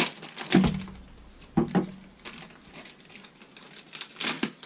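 Clear plastic bag crinkling and rustling as hands tear it open, with several sharp crackles and a few light knocks from the steel tool holder inside.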